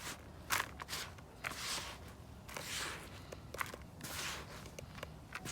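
A series of short rustling scrapes in loose soil as potatoes are dug out of the ground by hand.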